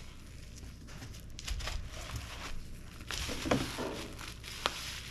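Plastic bubble wrap crinkling and rustling as it is handled and laid flat, with a couple of sharp clicks in the second half.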